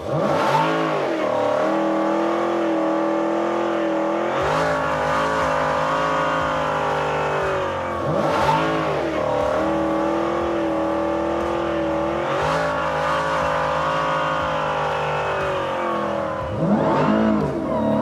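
Supercharged Hemi V8 of a Dodge Challenger SRT Demon 170 running at held revs, with quick rises and falls in engine pitch several times, about every four seconds.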